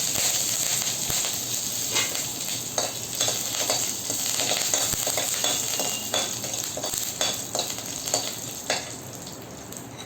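Curry leaves and mustard seeds sizzling and spluttering in hot oil in a kadai for a tempering, a steady hiss with many sharp pops that eases off near the end.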